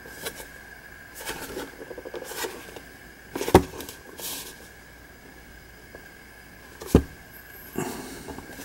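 Cardboard trading-card box and packaging being handled: scattered rustles and taps, with two sharper knocks about three and a half and seven seconds in.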